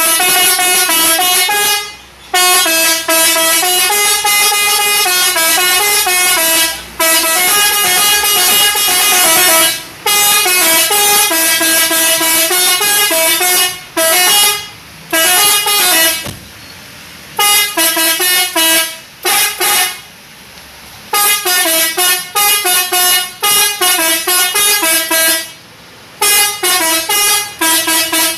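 Multi-tone telolet horn playing a tune in long phrases of stepping notes, with short pauses between phrases.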